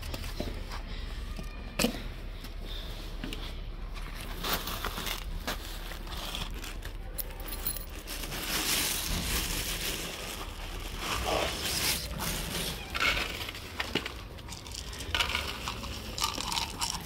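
Stray cats crunching dry kibble, with scattered clicks and clinks. Near the end, dry kibble rattles as it is poured from a plastic cup onto a foam tray.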